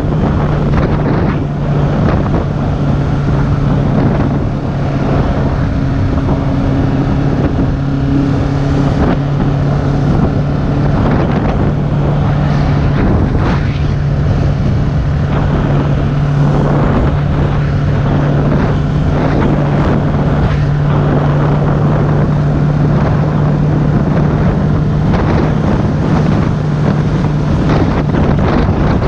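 Heavy wind noise buffeting the microphone over a motorcycle engine running at a steady speed, its low drone holding one pitch.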